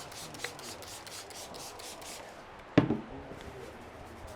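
Massage strokes rubbing quickly over skin and hair, about four strokes a second, followed by a single sharp, loud knock or slap nearly three seconds in.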